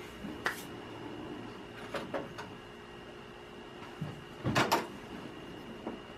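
Small sandblasted metal hand-plane parts clinking and knocking as they are picked out of a sandblast cabinet. A few light knocks come about two seconds in and a louder pair about four and a half seconds in, over a faint steady hum.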